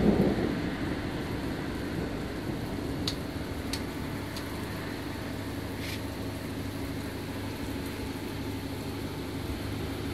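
A thunder rumble dies away in the first half-second. Then comes a steady rain hiss with a low continuous hum beneath it and a few short high ticks.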